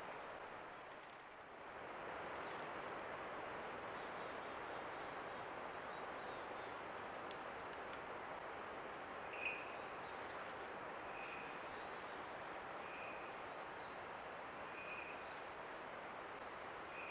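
Creek water running steadily, with a bird calling a short high note about every two seconds from about halfway in, and fainter high chirps of small birds.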